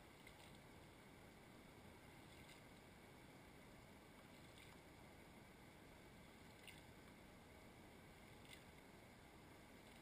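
Near silence: a faint steady hiss with soft ticks about every two seconds.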